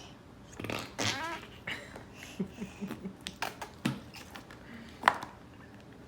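Fart putty (slime) squished and pressed in its tub, giving a run of short, irregular squelching fart noises with a few sharp clicks and taps.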